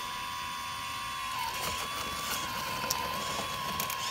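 Radio-controlled model excavator's motor whining steadily at one pitch, dipping briefly about a second and a half in as the boom and bucket swing down. A few light clicks come near the end.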